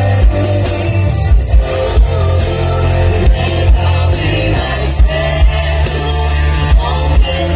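A band playing a worship song: drum kit with a heavy kick drum, bass and guitar, with a voice singing.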